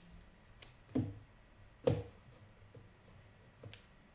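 Tarot cards handled over a wooden table: two soft knocks about a second apart, then a faint tap near the end.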